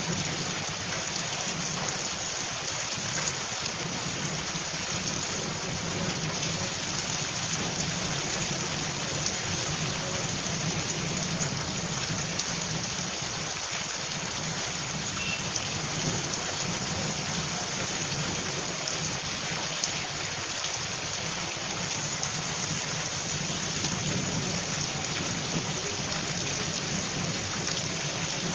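Heavy rain pouring steadily onto wet pavement and standing water, a dense even hiss with no let-up.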